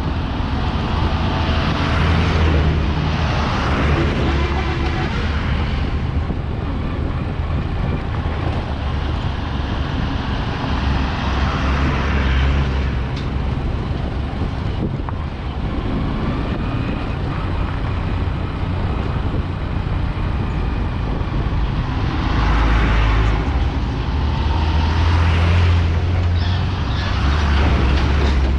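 Road traffic noise: a steady low engine and tyre rumble, swelling several times as vehicles pass.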